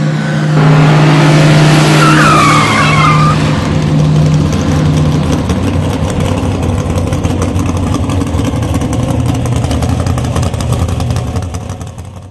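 Car engine running with a steady drone, with tyres squealing briefly about two to three seconds in, then the engine running hard with a rough, rasping exhaust until it fades out near the end.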